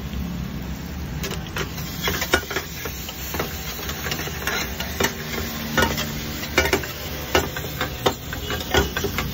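Slotted steel spatula stirring and scraping in a black frying pan, with frequent irregular clanks against the metal, over onion masala and ginger-garlic paste sizzling in hot oil.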